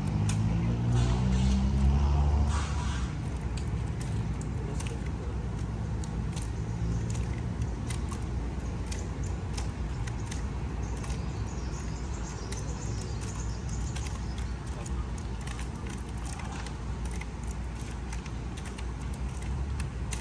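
A motor vehicle passes for the first few seconds, its engine note shifting in pitch as it goes by. After that comes a steady low traffic rumble, with scattered light clicks and taps.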